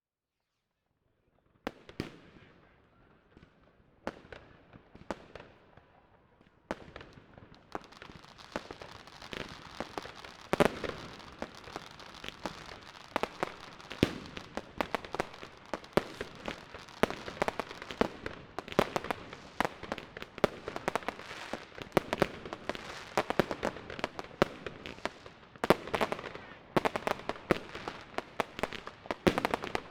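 Fireworks and firecrackers going off. After a second and a half of silence come a few scattered bangs, and from about seven seconds in there is a dense, continuous stream of bangs and crackling, with many sharp reports overlapping.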